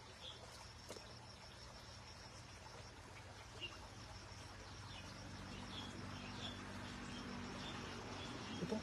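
A steady, high-pitched insect trill over the low, even rush of flowing stream water, with a few faint scattered chirps.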